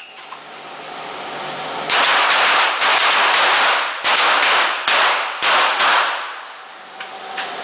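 A line of shooters firing pistols together, three rounds each, on a whistle command: a ragged volley of overlapping shots starts about two seconds in and thins to a few last shots by about six seconds, each shot echoing.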